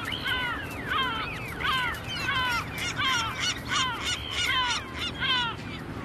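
Gulls calling over and over in a rooftop squabble: harsh, falling cries, several a second and overlapping one another.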